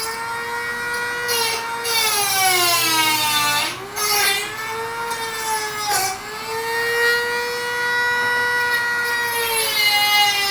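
Dremel rotary tool whining at high speed as it grinds rust out of rotted car-body sheet metal. Its pitch sags and recovers several times, with the deepest dip a few seconds in.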